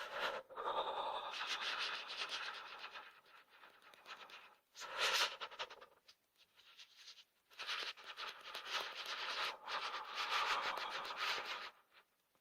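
A person shivering from the cold: rapid, juddering shivering sounds in several bursts, the longest near the end, stopping a little before the end.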